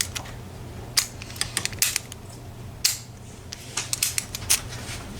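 A handful of short, sharp metallic clicks and taps at irregular intervals, from a padlock being handled.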